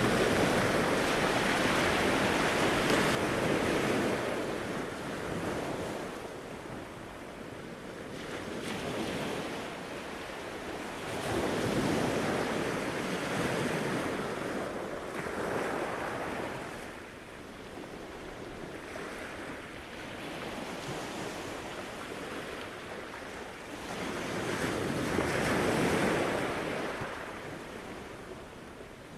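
Gulf of Mexico surf washing onto a sandy beach, a steady rush that swells and fades as each set of waves comes in, loudest near the start, in the middle and near the end.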